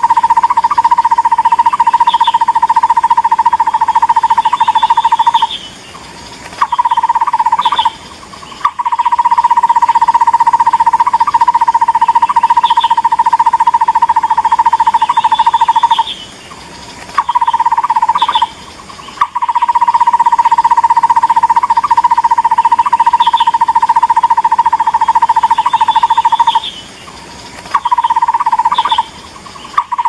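Takur bukit barbet calling: a long, rapid run of low, hollow notes lasting several seconds, broken by short pauses and shorter bursts, with faint higher chirps above. The same call sequence repeats about every ten seconds, as a looped lure recording.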